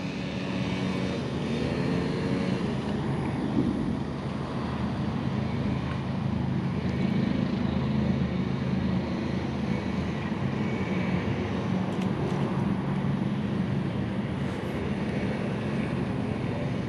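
A steady, low, engine-like drone with an even hiss over it, holding level with no clear rise or fall.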